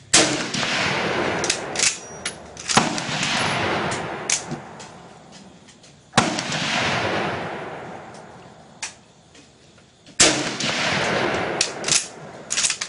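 Mosin-Nagant bolt-action rifle firing at a range: about four loud reports three to four seconds apart, each trailing off in a long echo lasting a second or two. Fainter sharp cracks fall between them, thickening near the end.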